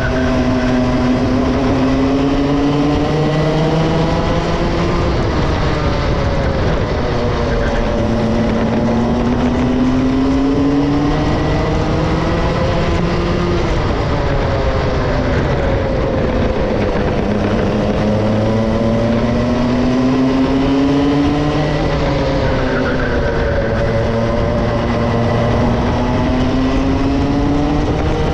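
Two-stroke racing kart engine at speed. Its note climbs steadily along each straight and falls away under braking, in four rising sweeps with a dip between each.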